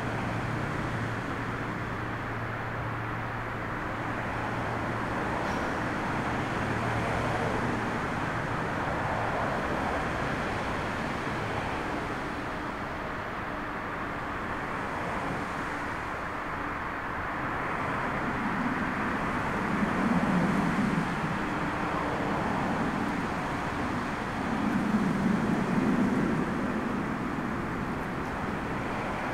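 Distant jet engines of an Airbus A320-family airliner lining up and rolling down the runway for takeoff: a steady rumble. Storm wind on the microphone swells twice near the end.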